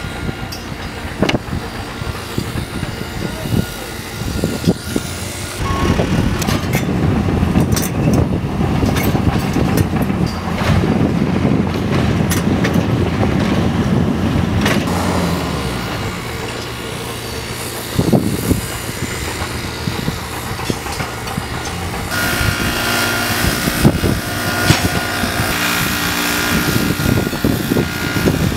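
Building-site machinery: a Hitachi Zaxis 50U mini excavator's engine runs under load as a compaction wheel on its arm packs soil, loudest for about ten seconds after the sixth second. From about 22 seconds in, a handheld gas leaf blower runs steadily with a high tone.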